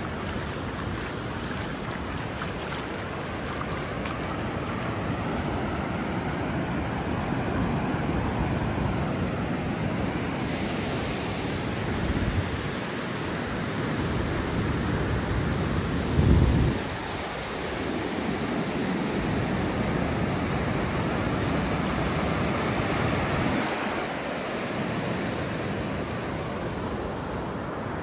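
Ocean surf washing in, rising and falling in slow swells, with wind buffeting the microphone. A strong gust hits about two-thirds of the way through.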